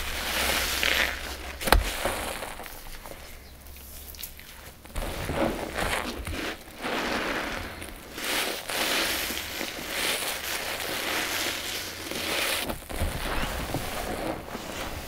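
Wet sponges loaded with a paste and powder mixture being squeezed by hand: crackling, squelching squeezes that come again and again, roughly every second or two, with a sharp click a couple of seconds in.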